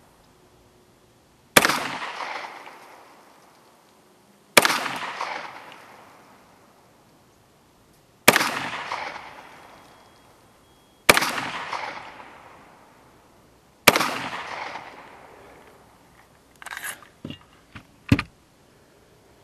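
Beretta 92FS 9mm pistol fired five times in slow, aimed fire, the shots about three seconds apart, each followed by a long echo that dies away. Near the end come a few short, sharp knocks and clicks, the last of them loud.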